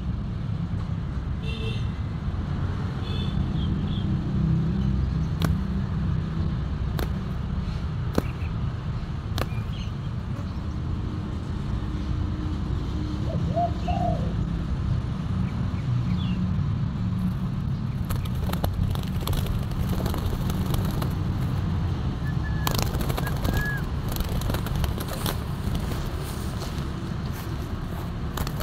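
Outdoor ambience: a steady low rumble with a few short bird chirps and a brief lower bird call about halfway through. Sharp clicks and rustles come thick and fast in the last several seconds.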